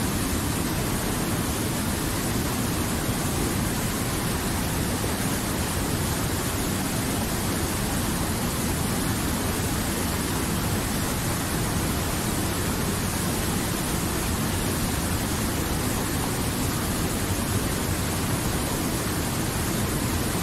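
Mountain river rushing over boulders in whitewater rapids: a steady, unbroken roar of churning water.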